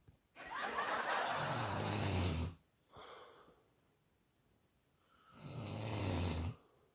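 A person snoring heavily: two long snores about four and a half seconds apart, each swelling and ending in a low vibrating buzz, with a short softer breath between them.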